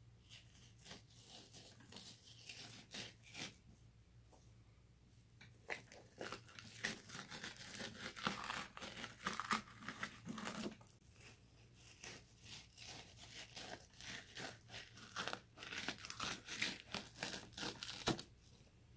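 Kitchen knife scraping and cutting against a plastic cutting board as skin is stripped from a red sea bream fillet: a run of scratchy scrapes and small clicks, thickest from about six seconds in until near the end.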